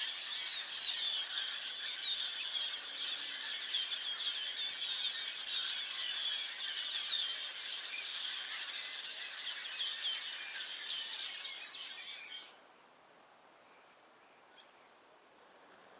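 A large flock of birds chattering in a tree, a dense mass of overlapping high chirps and calls. About twelve seconds in, the whole flock falls silent at once.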